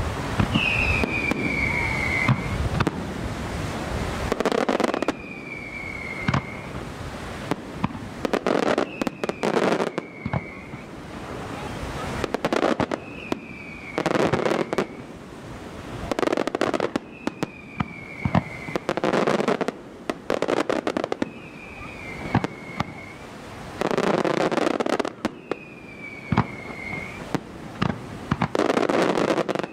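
Aerial fireworks display. A whistle falling in pitch recurs about every four seconds, and between the whistles shells go off in bursts of sharp bangs and crackling.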